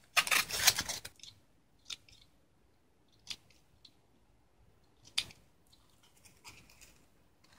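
Crackly handling of a plastic fishing-line winder for about a second, then a few isolated sharp snips of small spring thread snips trimming monofilament line.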